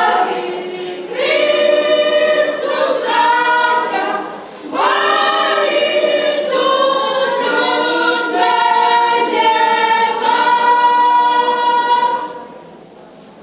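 Women's church choir singing a phrase in parts; the singing stops about a second before the end, leaving only faint room noise.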